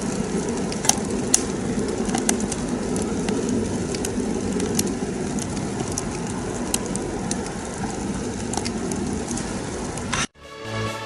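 Homemade rocket stove burning wood, a steady low rushing of the draft with scattered sharp crackles and pops. Near the end it cuts off abruptly and electronic music begins.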